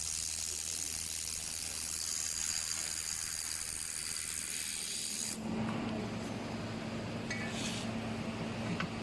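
Handheld fiber laser welder working on stainless steel: a steady high hiss of gas and weld sizzle that cuts off suddenly about five seconds in. A low machine hum and a few light clicks follow.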